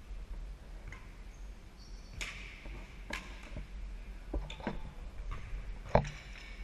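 Badminton rally: a series of sharp racket strikes on the shuttlecock, about one a second, the loudest about six seconds in, with brief sneaker squeaks on the gym floor.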